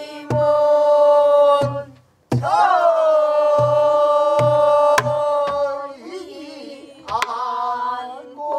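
Pansori singing by a teacher and her class in long held notes, over a buk barrel drum beaten by hand and stick: deep thumps and sharp clicks.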